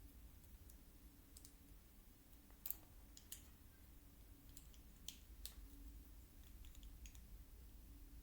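Faint, scattered clicks of small plastic Lego pieces being handled and pressed together, the sharpest about two and a half seconds in.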